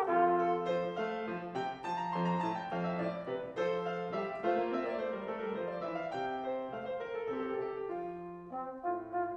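Grand piano playing a quick baroque passage on its own: the piano's reduction of the orchestral part in a concerto, between the solo trombone's phrases.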